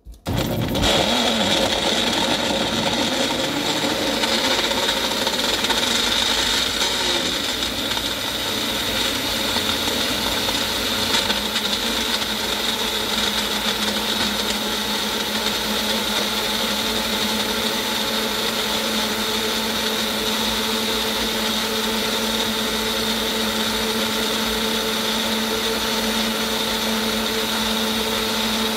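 Magic Bullet personal blender switching on and running at speed, chopping a frozen banana, spinach and kiwi in milk. The motor's steady whine is a little uneven for the first several seconds, then settles as the mix turns smooth.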